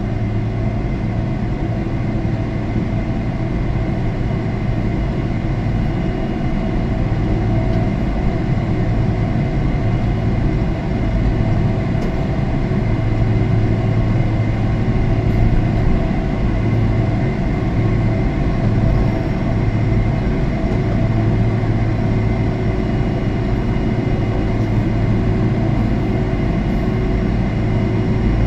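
Airliner cabin noise: the steady drone of the jet engines and airflow, with a constant low hum and a few faint steady tones above it.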